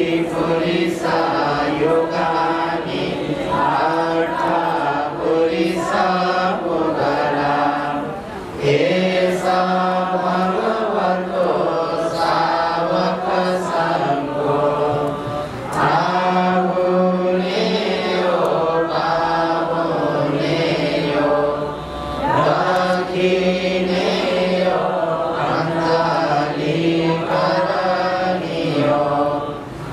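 Buddhist devotional chanting: voices chanting in long, steady phrases, with a short pause for breath about every seven seconds.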